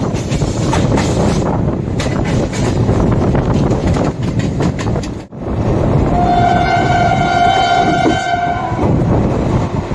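Indian Railways express train running with a steady rumble and the clatter of wheels over rail joints. About six seconds in, the WAP7 electric locomotive's horn sounds one steady note for about two and a half seconds.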